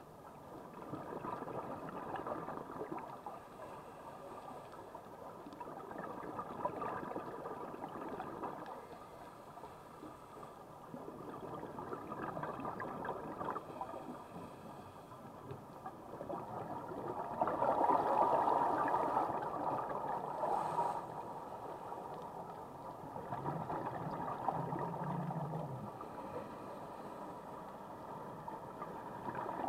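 Scuba regulator exhaust bubbles gurgling underwater, heard through the camera housing, in surges that swell and fade every few seconds with the diver's breathing. The loudest surge comes a little past halfway.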